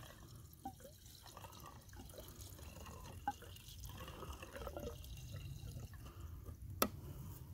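Two-stroke fuel mix trickling faintly from a gas can's spout into a Stihl MS 391 chainsaw's fuel tank, with small gurgles and drips. There is a sharp click near the end.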